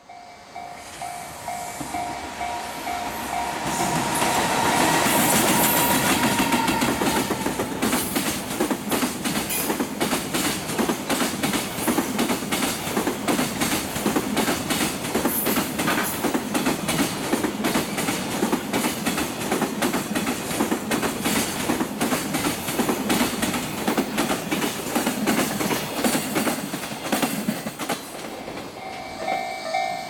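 Long JR Freight container train on container flatcars passing close by at speed, its wheels clattering over the rail joints in quick, uneven clicks. Near the end, as the train noise eases, the level-crossing bell rings again.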